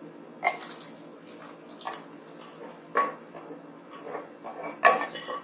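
Boiled vegetables tipped from a pan into a thick masala paste, landing with a few separate soft wet plops and squelches.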